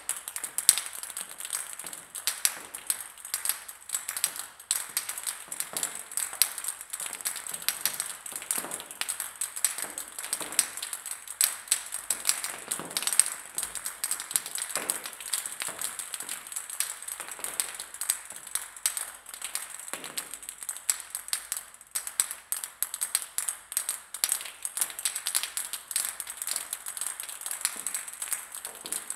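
Many plastic table tennis balls bouncing on a hard surface: a dense, irregular patter of light clicks and taps, several at a time.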